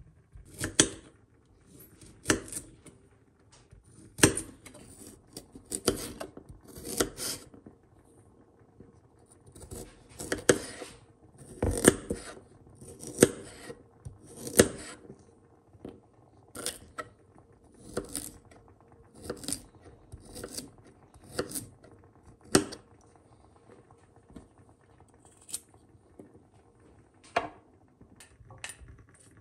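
Chef's knife slicing a raw carrot into rounds on a marble board. Each cut is a short crunch ending in a sharp click of the blade on the stone, one slow cut about every second or so.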